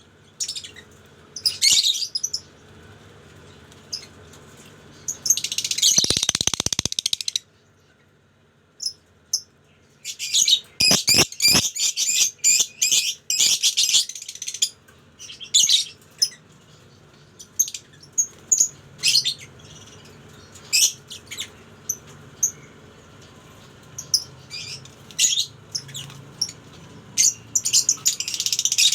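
A colony of lovebirds chirping: shrill chirps coming in busy flurries about five to seven seconds in and again from about ten to fourteen seconds, with scattered single chirps between.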